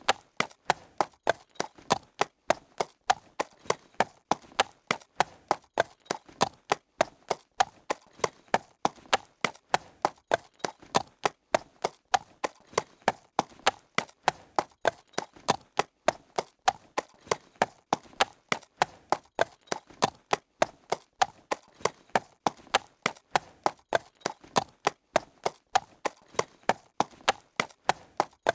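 Horse trotting on hard ground: hooves clip-clopping in a steady, even, unbroken rhythm of sharp strikes.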